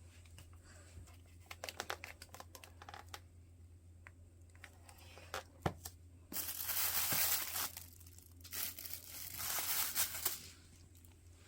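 Packaging being crinkled and torn open: scattered small crackles, then two longer tearing, rustling stretches of a second or two each in the second half.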